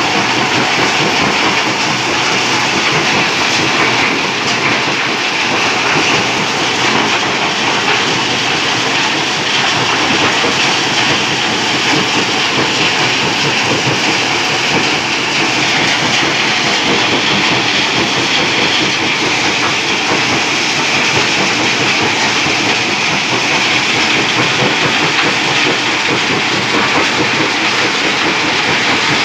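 Rock-crushing sand plant running: crushers breaking stone, with conveyors and a vibrating screen, making a loud, steady, dense clatter of rock and machinery.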